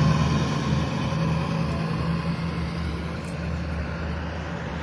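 A loud road vehicle driving past with a steady low engine hum and tyre noise, slowly fading as it moves away.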